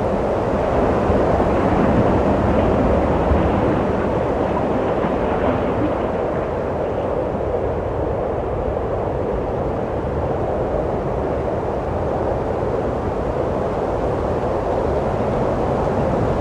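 Steady wind blowing, an even rushing noise that swells slightly a couple of seconds in and then eases.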